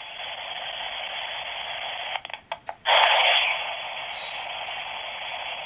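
S Box spirit box putting out steady white-noise static. A little over two seconds in it breaks up into a few quick dropouts, then comes back louder and settles again.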